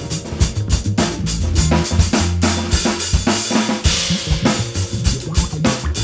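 Acoustic string band playing an instrumental passage: upright bass and mandolin over a drum kit keeping a steady beat, with a cymbal wash swelling up about three and a half seconds in.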